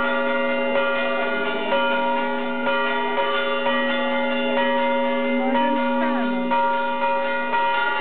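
Orthodox church bells pealing continuously, struck about once a second, their overlapping tones ringing on between strikes.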